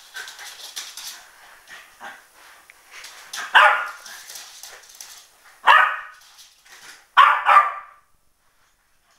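West Highland white terrier barking four times: single barks about three and a half and five and a half seconds in, then a quick pair near the end. Light scattered clicks and scuffles come before the barks.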